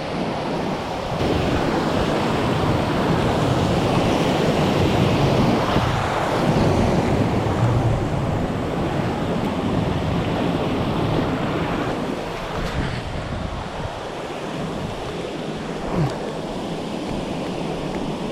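Steady rush of river water over rocks, with wind buffeting the microphone. It grows louder about a second in and eases off again after about two-thirds of the time.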